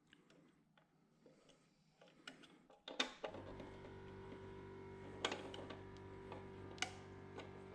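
Faint clicks and knocks from a wire spool being fitted onto a MIG welder's spool holder. About three seconds in, a sharp click is followed by a steady hum that carries on, with a few more clicks over it.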